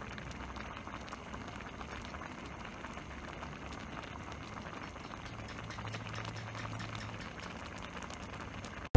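A wok of spiny-eel and fermented bamboo-shoot curry simmering, bubbling and popping steadily with many fine ticks; the sound cuts off abruptly at the very end.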